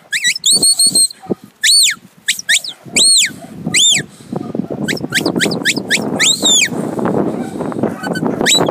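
A sheepdog handler's whistle commands: a string of short, high whistled notes, most rising and falling in pitch and a couple with a warble, about a dozen in all. Wind rushing on the microphone builds up through the second half.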